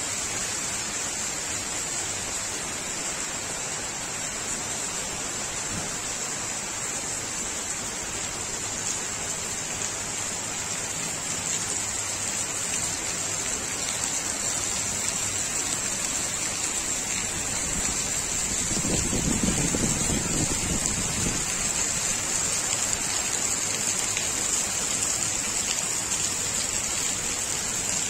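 Heavy rain falling steadily, a dense even hiss, with a brief low rumble about two-thirds of the way through.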